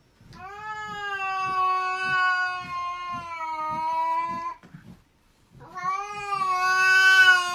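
A cat giving two long, drawn-out yowls, each held on a steady pitch that sags slightly, with a short break about five seconds in; the second yowl is the louder.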